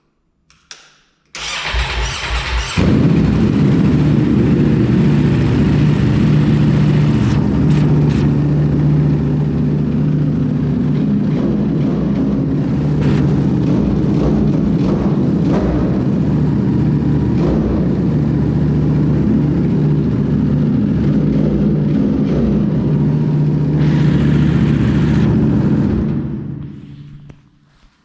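Ducati Panigale V4 motorcycle's V4 engine cranked on the starter for about a second and a half, catching and then idling steadily. About two seconds before the end it is switched off and runs down.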